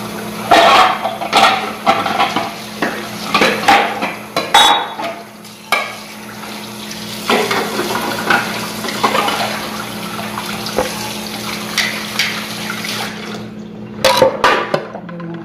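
Kitchen utensils and dishes clattering and clinking on a counter in irregular knocks, one with a brief metallic ring, over a steady low hum.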